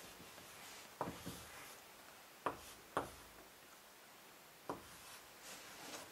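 Chalk writing digits on a school blackboard: four sharp taps as strokes start, with faint scratching in between.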